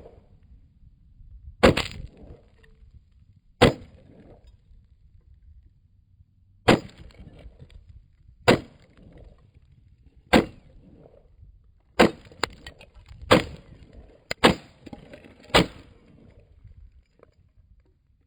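Nine single shots from a Mossberg 702 Plinkster semi-automatic .22 LR rifle, fired one at a time at uneven gaps of one to three seconds, coming faster toward the end.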